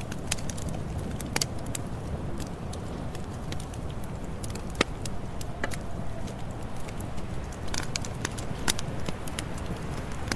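Campfire burning: a steady low rumble of flames with irregular sharp pops and crackles, a few louder snaps about five seconds in and again near the end.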